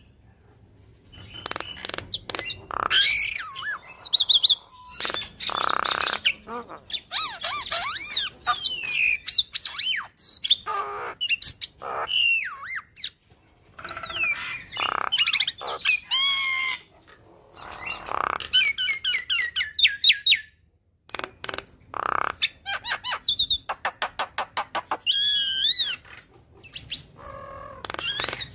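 Javan myna (jalak kebo) singing a long, varied medley of whistles, sweeping notes, harsh squawks and fast runs of repeated notes, with a few short pauses: the bird running through its repertoire of song fillers.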